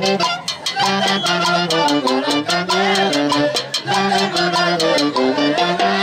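Recorded music by an orquesta típica: melody instruments playing a tune over a steady percussion beat.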